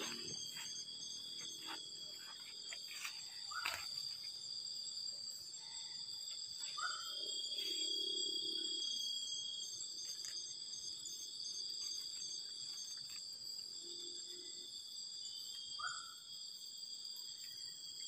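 Night-time forest insect chorus: crickets and other insects trilling steadily at several high pitches, with a few short chirps and faint clicks over it.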